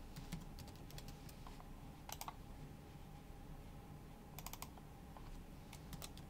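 Faint, sparse keystrokes on a computer keyboard, mixed with computer mouse clicks, including a quick cluster of clicks a little past halfway.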